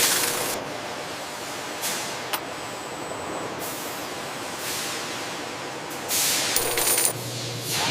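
Factory machinery noise: a steady hum broken by several short hissing whooshes, with a sharp click about two and a half seconds in and a louder hiss about six seconds in.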